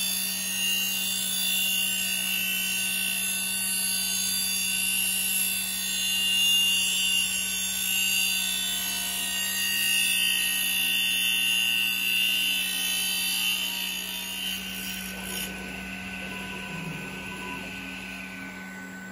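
A CNC machine's circular saw blade cutting lengthwise through a thick Japanese cedar slab: a high sawing whine over a steady motor hum. Near the end the sawing noise drops away, leaving the hum and a whine that falls in pitch.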